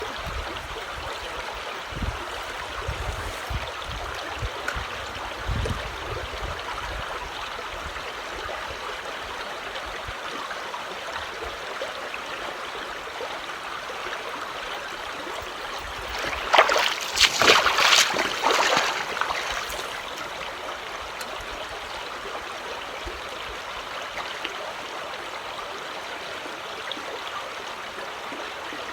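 Creek water running steadily, with a louder burst of noise lasting about three seconds a little past the middle.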